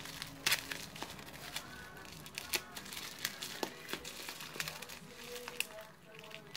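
Bubble wrap crinkling and crackling in irregular sharp snaps as it is cut open with a knife and pulled apart by hand.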